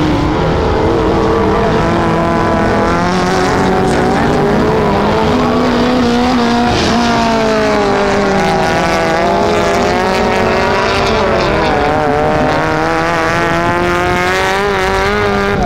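Small hatchback autocross race cars' engines revving hard on a dirt circuit, the pitch repeatedly climbing and dropping back as they power through the corners.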